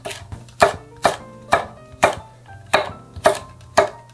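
Chef's knife slicing green and red chili peppers on a wooden cutting board: the blade knocks on the board about twice a second, some eight cuts in all. Soft background music underneath.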